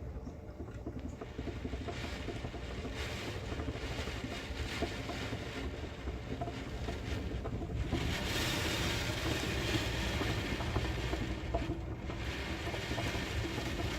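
Typhoon wind and heavy rain: a steady low rumble and rushing hiss. A stronger gust comes in about eight seconds in and dips briefly a few seconds later.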